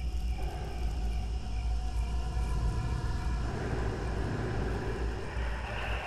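Night-woods ambience: a constant deep rumble under faint steady cricket chirping, with a rush of rustling noise swelling from a little past halfway.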